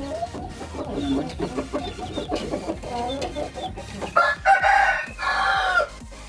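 Chickens clucking, then a rooster crowing loudly about four seconds in, one long call in two parts.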